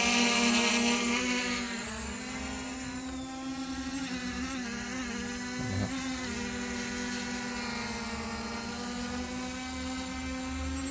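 JJRC EPIK X5 Pro quadcopter's brushless motors and propellers whining as it holds a hover in GPS position lock, the pitch wavering slightly as the motors make small corrections. It is louder for the first second or two, then a little quieter.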